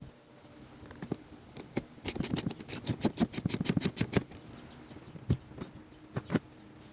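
A ratchet wrench clicking in a quick run of about eight clicks a second for around two seconds, with a few single clicks before and after. It is loosening the battery terminal to disconnect the car's battery.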